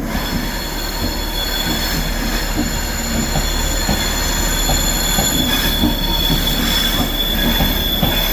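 Class 390 Pendolino electric train running through the station with a high-pitched wheel squeal: several steady shrill tones that set in suddenly at the start and hold, over the rumble of the train, growing slowly louder.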